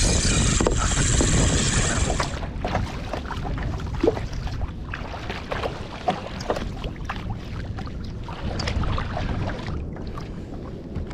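Sea water splashing and lapping against a kayak, with many small irregular drips and splashes. A louder rush of wind on the microphone for the first couple of seconds, which then drops away.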